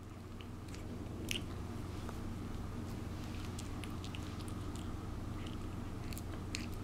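Two-month-old puppy nibbling and mouthing a person's fingers: faint scattered clicks of small teeth over a steady low room hum.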